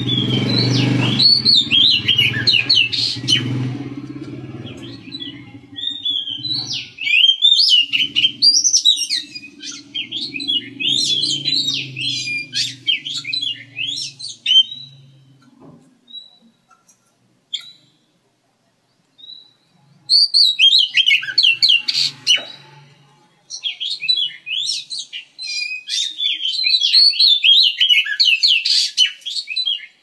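Oriental magpie robin singing: long phrases of rapid, varied, high whistled notes, broken by a pause of a few seconds about halfway through.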